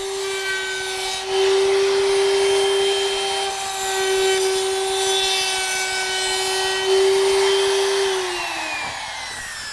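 Router with a chamfer bit, mounted under a bench top, running with a steady high whine that gets louder while the bit cuts the edge of a plywood push stick. About eight seconds in it is switched off and the whine falls in pitch as the motor winds down.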